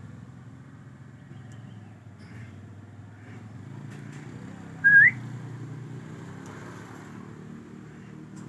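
Hill myna giving a single short whistle about halfway through, rising sharply in pitch at its end, over a steady low background hum.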